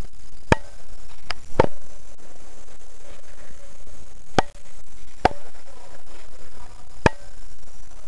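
Six sharp cracks at uneven intervals, the single shots of airsoft guns firing during the game, over a steady hiss.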